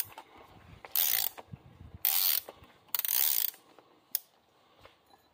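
Ratchet wrench clicking in three short runs, each about half a second, with a single click a little after four seconds in. It is driving a cap-wrench socket to unscrew the oil filter housing cap on the M113 V8 during an oil change.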